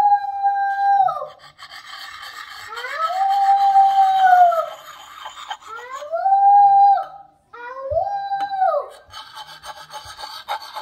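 A young child's voice giving four long, high howls, each sliding up, holding, then dropping away. Between them is the rasp of a Lansky Puck sharpening stone rubbed along an axe edge.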